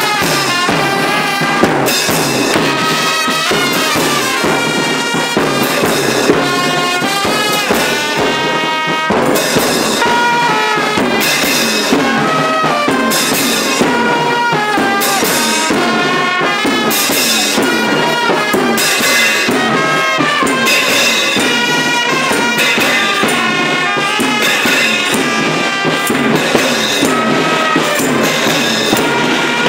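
Supporters' band playing a Thingyan song: a trumpet carries the tune over marching bass drums, clashing hand cymbals, a tambourine and hand clapping, in a steady beat.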